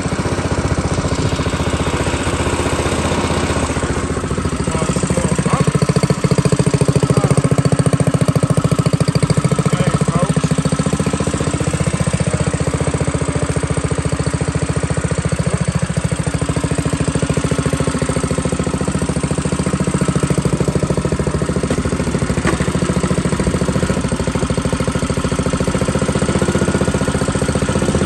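Coleman minibike's small single-cylinder four-stroke engine running near idle. Its note rises and falls a little as the throttle is worked, loudest a few seconds in.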